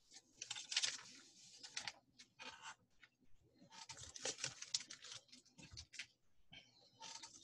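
Faint rustling and scraping of cross-stitch kit packaging, card and plastic sleeves, being handled and set aside, in several short bursts.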